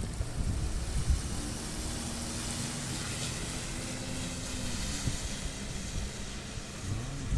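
Dodge Charger patrol car driving away on a wet street: a low engine hum under a steady hiss of tyres on wet pavement.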